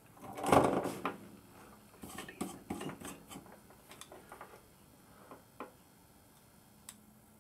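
Clatter of a soldering iron and its coiled metal stand being handled, loudest about half a second in, then small clicks and taps while fine wires are held and soldered, thinning to a few single ticks near the end.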